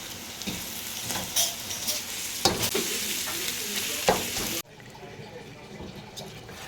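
Food sizzling in a hot frying pan while it is stirred, with the spatula scraping and knocking against the pan several times. About two-thirds of the way in the sizzle drops off suddenly, leaving quieter stirring and small clinks.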